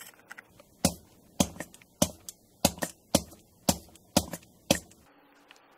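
Eight sharp clicks, evenly spaced about two a second, stopping about a second before the end.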